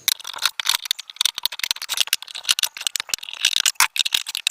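A screwdriver turning out the screws of a blender's base: rapid, irregular clicking and rattling.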